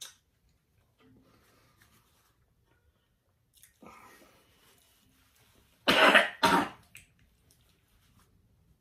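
A man coughing hard twice in quick succession about six seconds in, after a few faint breaths and throat noises, reacting to the burn of an extremely hot sauce.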